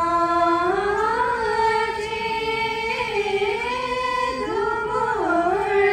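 Tibetan Buddhist puja liturgy chanted to a melody in long held notes, the pitch stepping up about a second in and dipping near the end.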